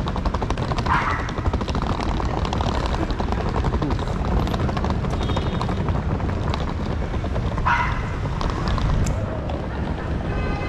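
Steady low rumble of city street noise, with two short sharp calls rising above it, one about a second in and one near eight seconds in.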